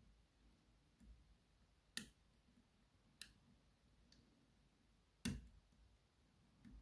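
Sharp metallic clicks from a thin hook pick and the pins inside a DOM RS Sigma six-pin euro cylinder being picked under tension, typical of pins setting. Three clicks stand out, about two, three and five seconds in, the last the loudest, with fainter ticks between, over near silence.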